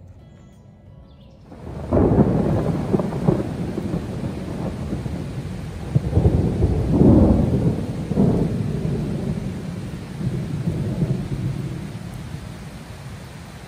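Heavy rain pouring down, starting abruptly about a second and a half in, with loud low rumbling surges about two seconds in and again from about six to eight seconds in, easing off toward the end.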